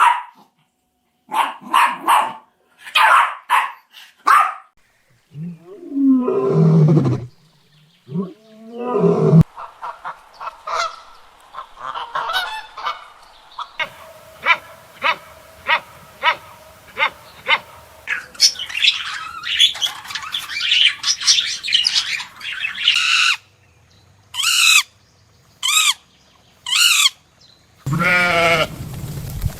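Farm animals calling, several kinds in turn: runs of short honking calls like geese or ducks, with a lower drawn-out bleat or moo a few seconds in and another bleat-like call near the end.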